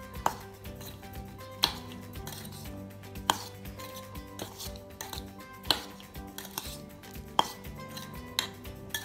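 Spoon stirring corn chaat in a steel bowl, knocking and clinking against the bowl's side every second or two, with soft scraping through the wet kernels in between.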